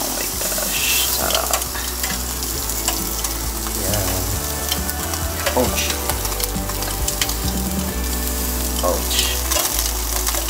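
Pork belly slices sizzling on the wire rack of an electric grill, a steady hiss with many small spitting pops of fat.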